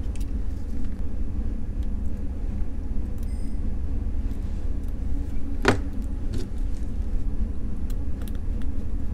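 Steady low rumble, with one sharp click a little over halfway through and a few faint ticks from tweezers and a small screwdriver as a battery cover is held and screwed down onto a digital watch module.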